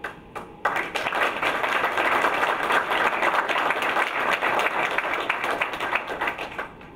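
Audience applauding: a few scattered claps, then steady applause from about a second in that fades out near the end.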